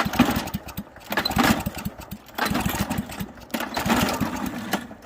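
Straight-piped lawn mower engine, with its muffler and airbox removed and held on choke, running rough: an uneven string of loud exhaust pops that swells and fades in about four waves.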